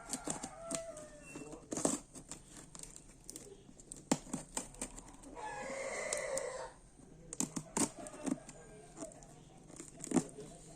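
Packaging of a boxed action figure being handled and torn open: crinkling and tearing with scattered sharp clicks, and one longer tearing sound lasting over a second about halfway through.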